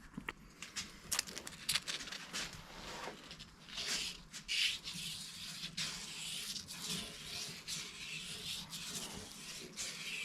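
A small-end bush being lapped out by hand with emery: irregular scratchy rubbing and scraping strokes with a few light ticks, easing a slightly tight gudgeon-pin fit.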